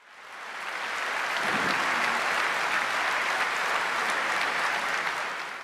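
A large seated audience applauding, swelling over the first second, holding steady, then fading out near the end.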